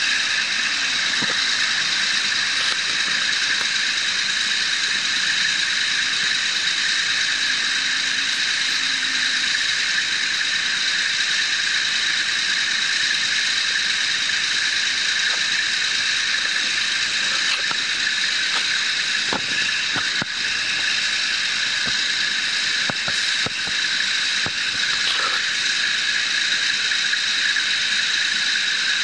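Gin pole trucks running steadily as their winches slowly drag a drilling rig's drawworks off a bed truck, with a continuous high whine over the noise. A few short knocks come about two-thirds of the way through.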